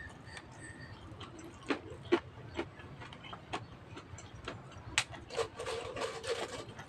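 Close-up eating sounds of a person chewing a mouthful of rice and karedok with the mouth: scattered wet lip-smacks and mouth clicks, growing busier about five seconds in.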